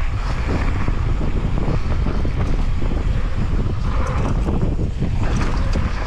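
Wind rushing over a camera microphone at riding speed on a mountain bike descent, a steady loud buffeting with scattered small knocks.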